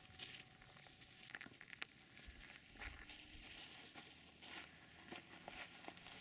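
Faint rustling with scattered light crackles and ticks, a little busier from about halfway through.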